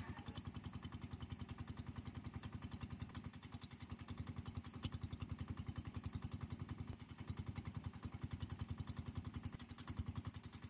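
A boat engine running steadily while under way: an even, rapid, low pulse.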